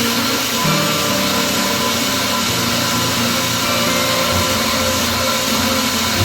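An electric power tool's motor running steadily, with a dense whirring hiss.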